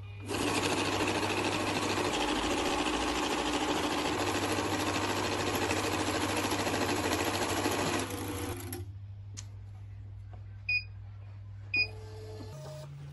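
XD-6000 value-counting banknote counter running a stack of US dollar notes through at speed: a fast, steady rush of notes for about eight seconds that then winds down. A few seconds later its keypad gives two short beeps about a second apart.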